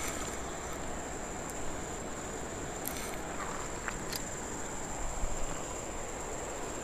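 Insects trilling on one steady high note over the even rush of a fast-flowing river, with a few faint clicks.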